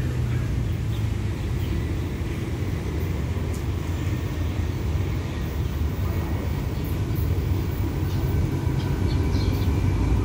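A diesel locomotive hauling a passenger train approaches with a low, steady engine drone, growing louder over the last couple of seconds.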